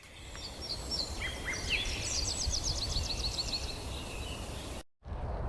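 A songbird singing: a few high chirped notes, then a fast trill of repeated notes, over a steady low rumble. The sound cuts out abruptly near the end.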